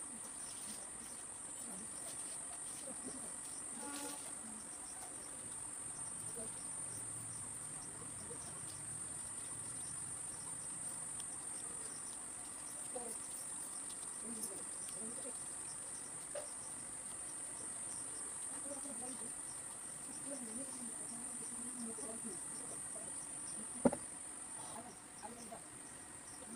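Crickets trilling steadily at a high, even pitch, with one sharp click near the end.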